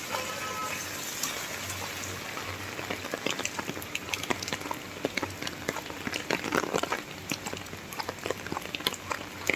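Rain falling, with many close drops tapping on a hard surface; the tapping grows thicker from about three seconds in.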